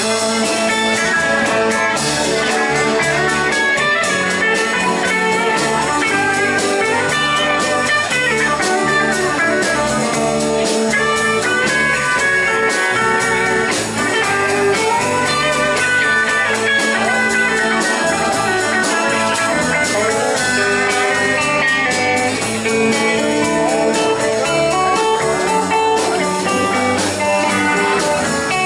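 Live country-rock band playing an instrumental passage: electric guitars over bass guitar and a drum kit, at a steady loud level.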